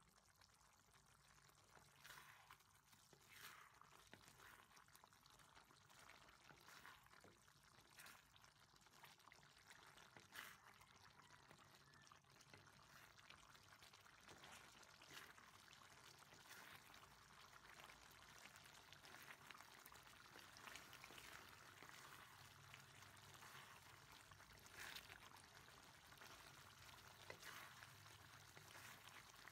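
Faint bubbling of pork and long beans simmering in a wok, with scattered small pops and knocks. In the second half a wooden spatula stirs them, scraping and clacking against the pan.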